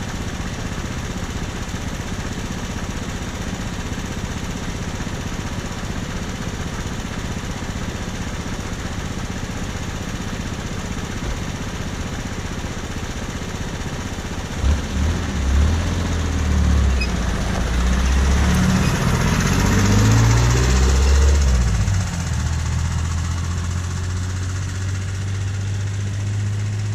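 An engine running steadily, then growing louder about halfway through, its pitch shifting up and down for several seconds with a brief hiss, before settling into a steady low hum.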